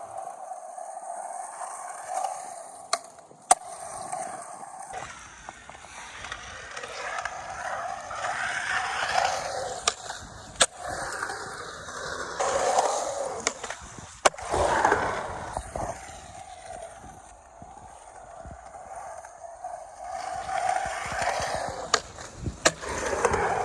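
Skateboard wheels rolling on concrete, broken by several sharp clacks of the board being popped and landing.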